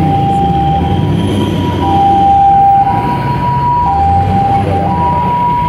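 Two-tone hi-lo siren, switching between its two notes about once a second, over the low rumble of a slow-moving convoy of SUVs and pickup trucks.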